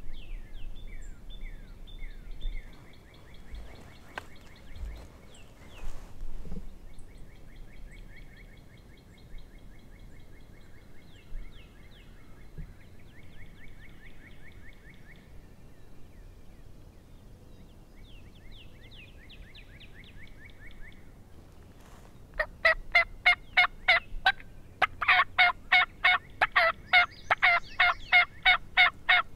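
Faint songbird trills, then near the end two fast runs of loud turkey yelps, about six notes a second, the second run longer.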